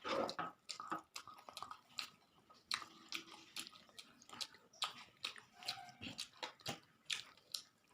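Close-miked chewing of a mouthful of parshe fish and rice: wet mouth smacks and small irregular clicks, several a second.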